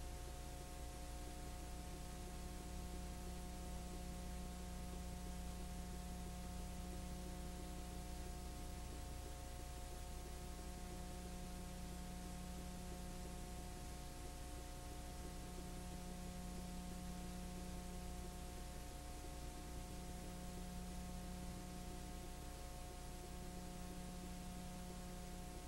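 Steady electrical hum made of several fixed tones, over an even hiss: the background noise of a transfer of a silent home movie. One low hum tone swells and fades every few seconds.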